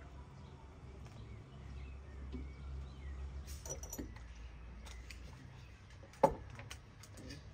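Small clinks of glassware and wrapped sweets being picked through in a cut-glass bowl, with one sharp glass clink about six seconds in, over a low steady background hum.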